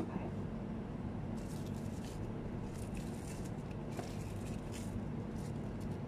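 Steady low hum of kitchen equipment, with soft scattered rustles and light ticks from gloved hands laying fillings onto nori sheets for sushi rolls.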